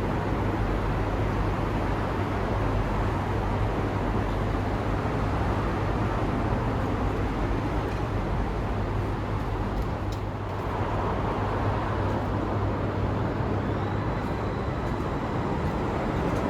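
A Nockebybanan (Line 12) tram running along its line: a steady rumble with a constant low hum. A faint high tone comes in about fourteen seconds in.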